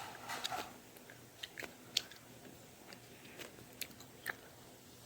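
Faint, scattered small clicks and crackles from hands squeezing and handling a slow-rising foam squishy.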